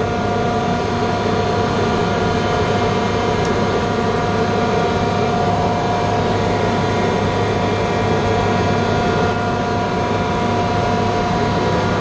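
Steady drone of running machinery: a constant low hum with a few unchanging tones over a noisy rush, without pauses or strokes.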